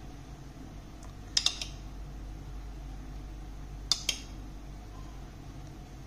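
A metal spoon clinking against a ceramic bowl while scooping sauce: a couple of short clinks about a second and a half in and two more about four seconds in, over a low steady hum.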